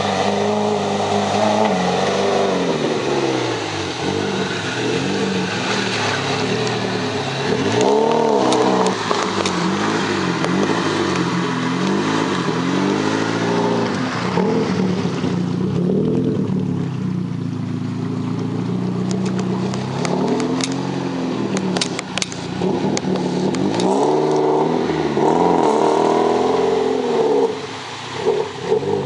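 UAZ off-road vehicle's engine revving up and down again and again, its pitch rising and falling. The engine note drops back for a few seconds about halfway through, and a few sharp knocks follow.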